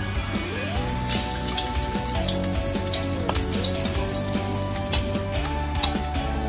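Chopped garlic sizzling in hot oil in a frying pan, the hiss starting about a second in as it hits the oil, with a spatula clicking against the pan as it is stirred. Background music plays underneath.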